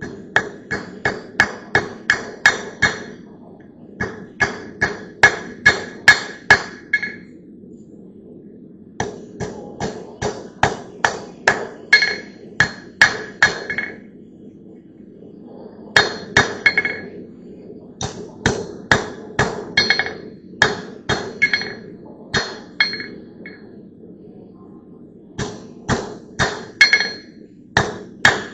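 Hand hammer striking steel in runs of quick blows, about three a second, with short pauses between the runs. Each blow leaves a brief metallic ring.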